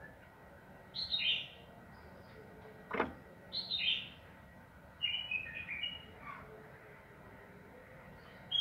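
Yellow-vented bulbul (trucukan) singing in short, bubbly phrases that fall in pitch, four bursts a couple of seconds apart. A single sharp knock comes between the first two phrases.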